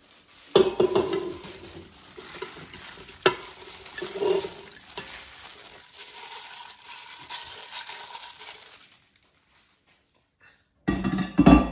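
Raw chicken gizzards tipped from a plate and pushed by a plastic-gloved hand into a stainless steel Instant Pot inner pot with a little water in it: wet slaps and sharp clicks against the metal, with handling noise. It stops a little before the end, followed by one loud thump.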